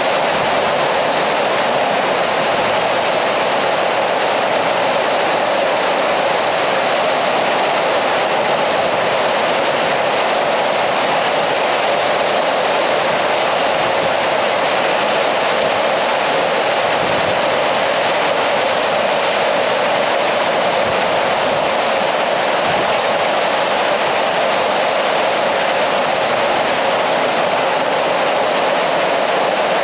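Steady, loud rushing of water inside a limestone cave, from its underground stream and waterfall.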